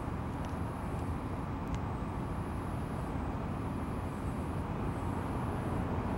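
Steady low outdoor rumble of background noise, with two faint clicks in the first two seconds.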